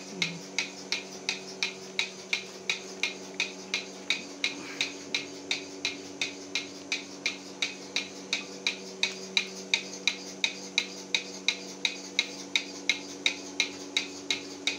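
Bucket milking machine running: the pulsator on the bucket lid clicks evenly about three times a second over the steady hum of the engine-driven vacuum pump, with the teat cups on the cow and milking under way.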